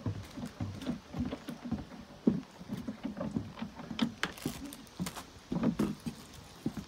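Footsteps on the boards of a wooden jetty: an irregular run of short thuds and knocks, several a second.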